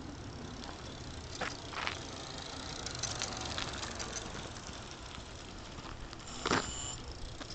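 Light electric bicycle with a roof canopy riding past on asphalt, rattling, with a few sharp clicks early on and one short, loud, high-pitched squeal about six and a half seconds in.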